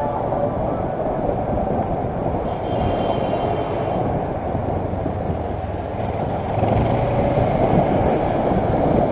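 Kawasaki Versys motorcycle under way in traffic: a steady mix of engine and wind noise on a bike-mounted camera's microphone, getting louder about two-thirds of the way through.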